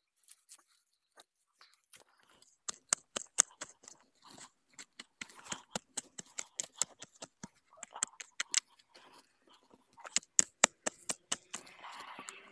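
Dry plant material crackling and snapping in quick, irregular succession, the sound of dry leaves and stalks being handled or broken. It starts faintly and becomes dense about two seconds in.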